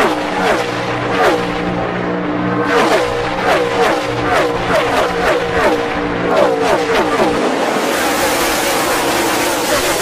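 A pack of NASCAR stock cars' V8 engines passing one after another at speed, each engine note dropping in pitch as it goes by. About seven seconds in, the separate passes blur into a steady roar.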